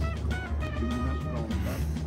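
Background music: held notes over a steady low bass.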